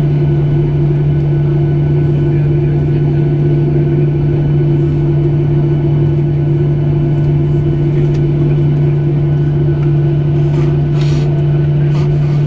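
Steady cabin drone inside a Boeing 737 taxiing to the gate after landing, with the engines at idle and the air conditioning running. It is a loud low hum with a steady higher tone above it, and a brief rustle near the end.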